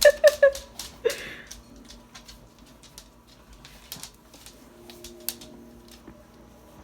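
A dog gives three quick, short pitched yips, then a rougher huff about a second in, followed by scattered light clicks and scuffles.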